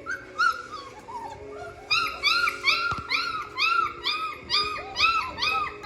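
German Shepherd puppies whining and crying: a string of high-pitched cries, each rising and falling, a couple at first and then about two a second from two seconds in.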